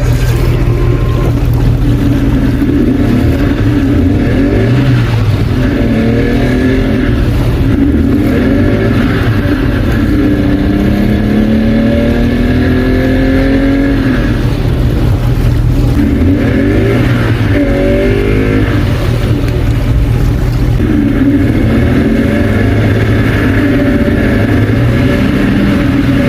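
Two-stroke engine running cold with its revs rising and falling unevenly, never settling; the uploader puts it down to bad ignition timing.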